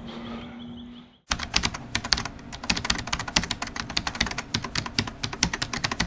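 Typing sound effect: a rapid, unbroken run of key clicks, many a second, starting abruptly about a second in after a moment of faint outdoor ambience.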